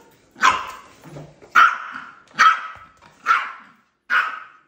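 A small long-haired terrier barking: five sharp, high barks about a second apart.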